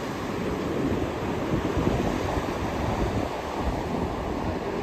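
Ocean surf washing on the shore as a steady rush, with wind rumbling on the microphone.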